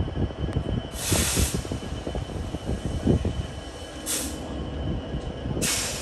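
EMD GP60 diesel locomotive's two-stroke engine rumbling as the locomotive creeps forward at walking pace. Three short bursts of hissing come about a second in, about four seconds in and near the end.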